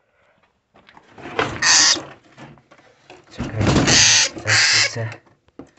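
Parrot giving harsh screeches: three loud bursts, one about a second and a half in and two close together near the end.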